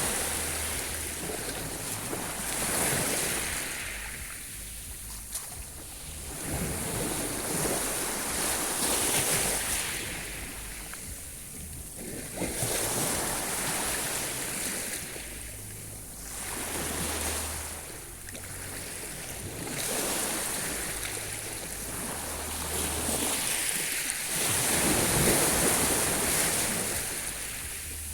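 Sea waves breaking and washing on the shore, swelling and ebbing in slow surges about every four to five seconds.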